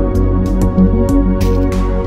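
Background music with deep bass notes and scattered light percussive clicks.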